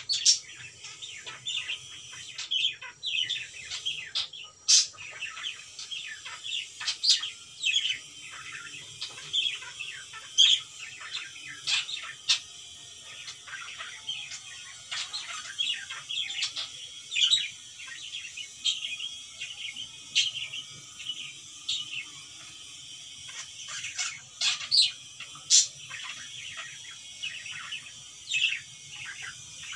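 Cockatiel chirping over and over, short sharp high chirps coming in quick, uneven runs, over a faint steady low hum.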